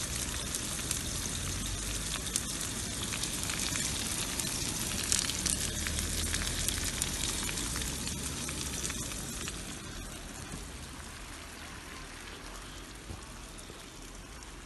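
Sucuk, Turkish spiced sausage, sizzling in hot oil in a frying pan: a dense spatter of fine crackles and pops, a little quieter after about ten seconds.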